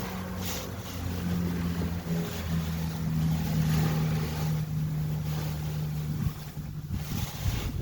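A steady low motor hum running on, with wind noise on the microphone.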